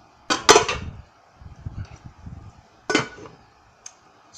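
Kitchen cookware clanking: a quick double clatter of a glass pot lid going onto a stockpot and dishes being set down, then another single knock and a faint click.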